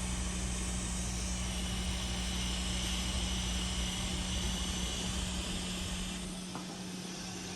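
Hot air rework station blowing a steady hiss of air with no nozzle fitted, heating the board so the new USB-C port's solder reflows. The airflow drops about six seconds in.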